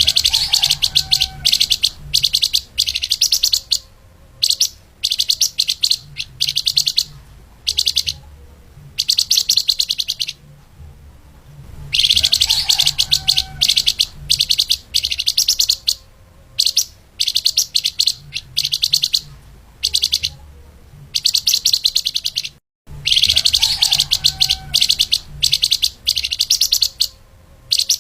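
A songbird known to Indonesian bird-keepers as flamboyan or lemahan sings a fast, tightly packed run of high chirps in bursts broken by short pauses. It is a looped training recording for teaching other birds, repeating about every eleven seconds, with a brief dropout near the end.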